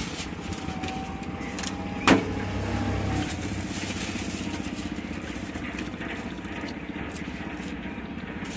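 Street traffic running steadily in the background, with a faint engine hum and whine in the first few seconds, and one sharp knock about two seconds in.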